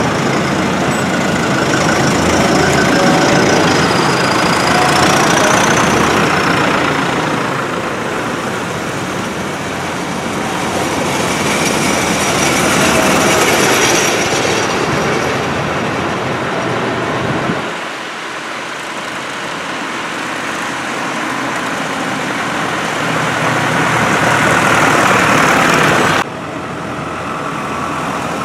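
Farm tractors' diesel engines running as the tractors drive past one after another, the sound swelling and fading with each pass. The sound drops abruptly about two seconds before the end.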